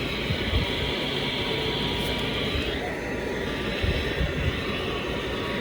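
Radio static: a steady hiss from a weather radio receiver with no clear signal between broadcasts, with a faint steady tone and a few short low thumps.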